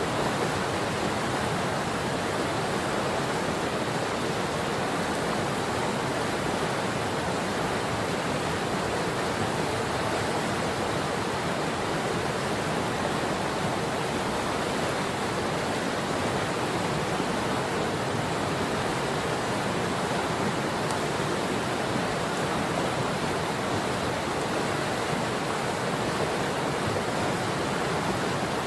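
Steady rushing of the Patapsco River's flowing water, an even, unbroken wash of sound.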